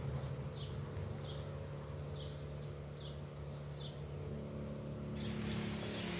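A bird repeats a short, high, falling chirp about once a second over a steady low hum. A brief rustle comes near the end.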